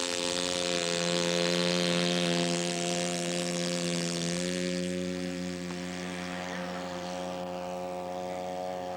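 Radio-controlled scale model airplane's engine running steadily at a held pitch, which eases down slightly and gets a little quieter about halfway through.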